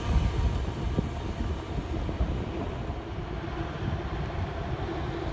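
Intermodal container freight train's wagons rolling away along the track, a low wheel rumble that fades as the end of the train recedes.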